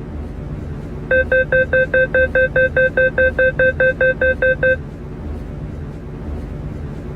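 MTR train door-closing warning: a rapid run of loud electronic beeps, about five a second for three and a half seconds, starting about a second in, over the steady low hum of the train.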